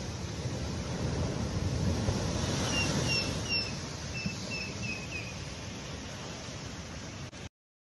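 Heavy storm surf washing over a seafront promenade and seawall, a steady rush of water noise. In the middle a bird gives a run of about seven short, slightly falling high chirps. The sound cuts out abruptly just before the end.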